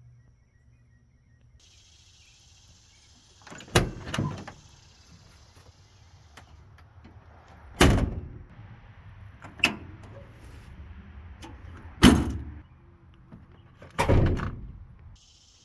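Doors of a 1989 Ford F250 pickup being slammed shut: a series of heavy slams a couple of seconds apart, about five in all.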